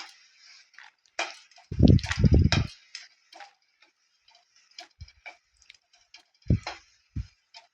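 A spoon knocking, scraping and clicking against a kadai as fried peanuts are lifted out of the oil. There is a quick cluster of knocks about two seconds in, then a few scattered clicks.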